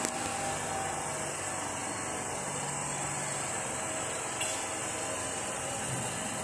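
Steady rushing hiss of background noise, with a small knock at the very start and another about four seconds in.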